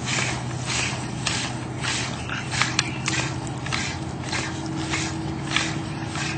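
Floor air pump being worked at a steady pace, about one and a half strokes a second, each stroke a hissing rush of air. It is pressurising a plastic bottle water rocket through a ball-inflation needle pushed through its cork.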